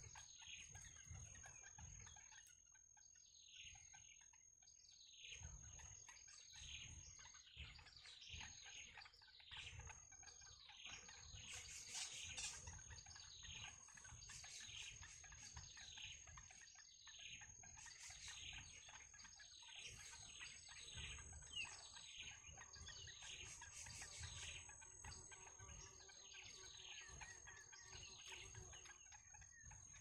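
Bittern chicks begging at the nest: faint, rapid, high chirps that each fall in pitch, several a second, over a steady high whine.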